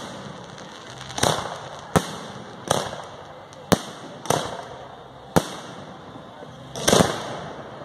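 Fireworks shells bursting in a salute display: about seven sharp bangs at uneven intervals of roughly a half to one and a half seconds. Several of the bangs trail off in a longer echoing tail.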